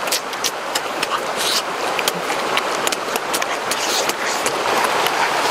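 Steady rush of a stream or waterfall, with scattered sharp clicks and smacks from close-up chewing and biting into fish.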